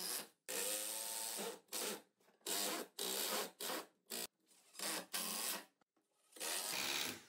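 Bosch 12 V cordless driver driving screws through a plywood fence into the sled base, running in a string of short bursts of a second or less, with pauses between as each screw is set.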